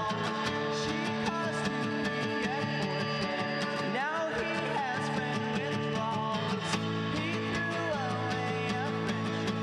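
Acoustic guitar strummed steadily in a live solo performance.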